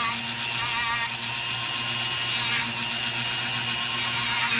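Small electric power tool's motor running steadily: a constant hum with a high hiss over it.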